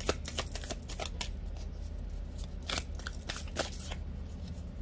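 Tarot cards being handled and shuffled by hand: irregular quick snaps and clicks in two flurries, with a short pause between them.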